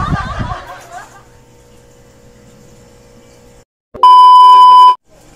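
Television test-pattern tone: a loud, steady, high beep about one second long, starting about four seconds in and cutting off sharply, used as an editing transition over colour bars.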